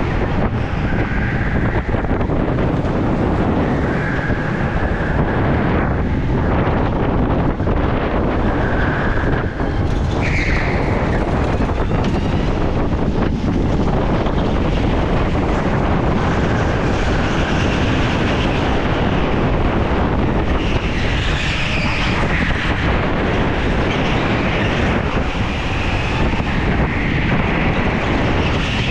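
Go-kart running at racing speed, heard from the driver's helmet with steady wind noise on the microphone, and brief tyre squeals now and then through the corners.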